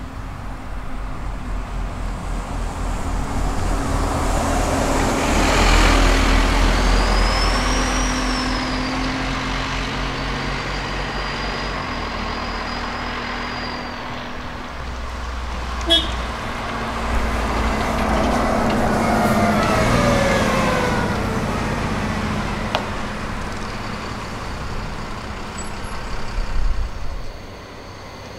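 Diesel buses driving past, the engine noise swelling to a peak about six seconds in and again about twenty seconds in. A high whine rises and falls during the first pass, the engine pitch falls during the second, and there is a sharp click in between.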